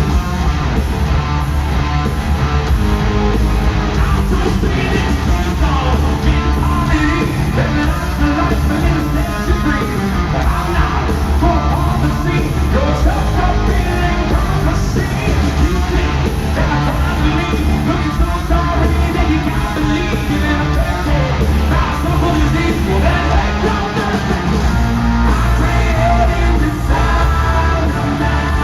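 A rock band playing live at full volume: heavy drums, bass and electric guitars with a lead singer belting out the vocals.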